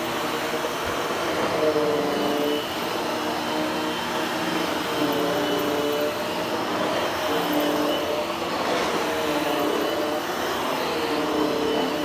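Hushtone upright vacuum cleaner running on its low power setting over olefin carpet. Its steady motor hum wavers in pitch every couple of seconds as it is pushed back and forth in a final grooming pass.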